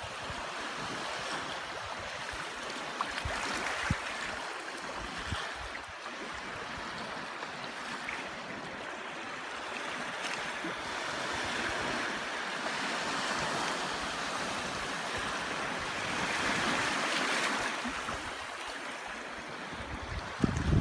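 Barents Sea surf: a steady wash of waves, swelling louder twice as waves break and run in.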